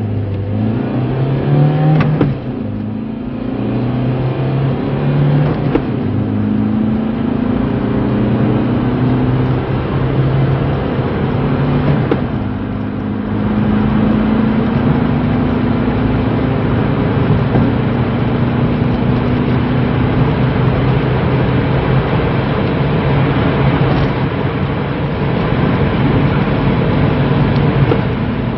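Seat Ibiza mk2 1.9 TDI four-cylinder turbodiesel under hard acceleration, its pitch climbing through each gear and dipping briefly at the gear changes, three of them.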